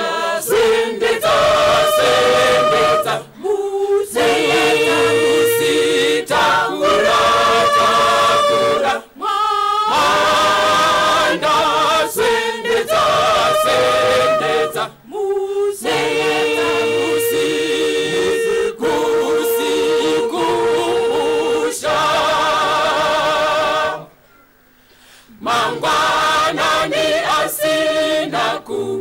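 Mixed church choir singing a cappella in held, sustained phrases, with short breaks between lines and a full pause of about a second and a half near the end before the singing resumes.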